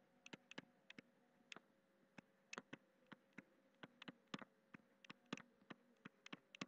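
Faint, irregular clicks and taps of a stylus pen on a writing tablet as words are handwritten, several a second, over a faint steady hum.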